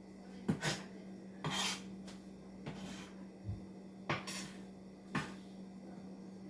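Dishes and kitchen utensils knocking and clattering as they are handled and set down, about seven separate knocks a second or so apart, over a steady low hum.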